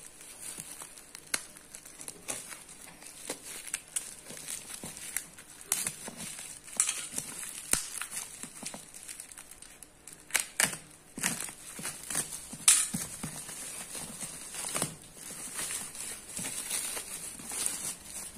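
Bubble wrap and plastic packing tape crinkling and tearing as a parcel is unwrapped by hand, in irregular crackles and rustles.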